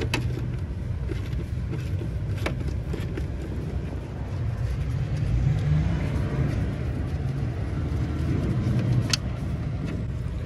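A vehicle engine idling with a steady low rumble. Three sharp metallic clicks from hand tools on the battery tray bolts sound over it.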